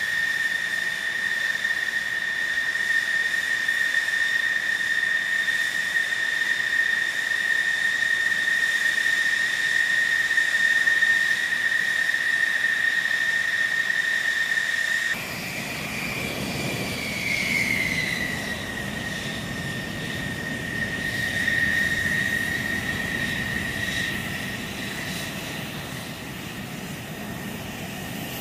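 F-16 Fighting Falcon jet engines running at taxi power, a steady high whine. About halfway through, the sound changes abruptly: the whine slides down in pitch and settles, over a lower rumble.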